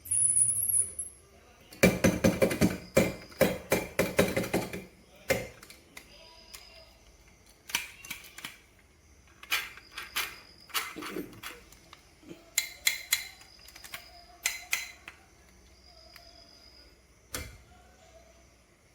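Glass marbles clacking and rolling down a wooden marble run. A dense rattling clatter starts about two seconds in and lasts about three seconds, followed by scattered clicks and short clusters of knocks as the marbles drop and hit the track pieces.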